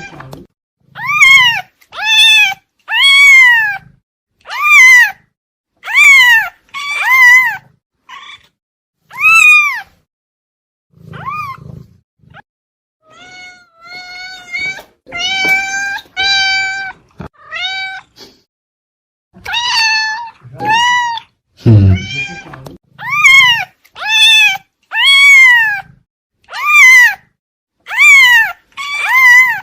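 Domestic cat meowing over and over, one call after another, each rising and then falling in pitch, with a run of quieter, flatter meows in the middle.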